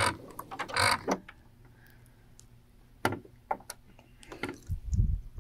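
Domestic sewing machine stitching slowly: a few sharp mechanical clicks a little past halfway, then a low thump near the end.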